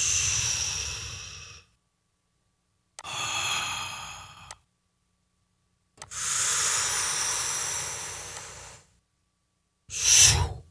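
Mouth-made breath sound effects, blown whooshes played back through an equaliser: three long breathy gusts, each starting strong and fading away over one to three seconds, then a short one near the end.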